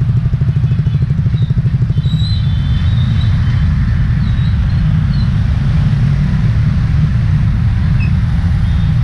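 Yamaha Taurus motorbike's engine and road rumble heard through an action camera mounted on the bike, in dense scooter traffic. The engine pulses for the first two seconds, then the sound settles into a steady low rumble.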